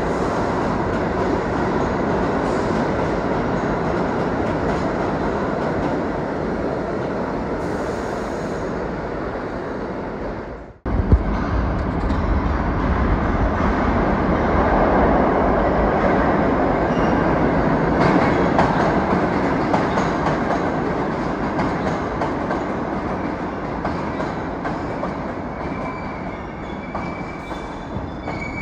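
New York City subway train running through an underground station: a loud, steady rumble and rattle of steel wheels on track. It breaks off abruptly for a moment about eleven seconds in, then comes back loud. A high wheel squeal starts near the end.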